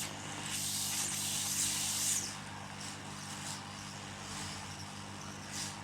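Hot-air rework station blowing onto the phone board: a steady hiss of air over the station's low hum, louder for the first couple of seconds and then settling lower. The hot air is melting the solder under a processor chip so it can settle onto the board.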